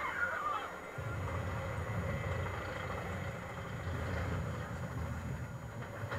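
Steel roller coaster train running along its track, a steady low rumble that comes in about a second in.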